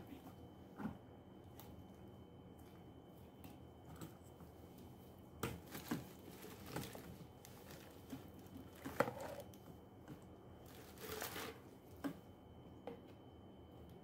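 Scattered light clicks and knocks of plastic parts with short bursts of rustling and scraping, as a wet-and-dry vacuum's corrugated hose and plastic extension tube are handled and fitted together. The motor is not running.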